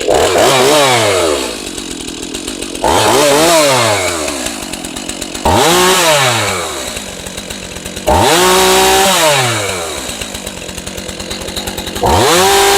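Stihl chainsaw engine idling and revved to high speed five times, each rev rising sharply, holding for about a second, then dropping back to idle. It is running on a newly fitted clutch and drum.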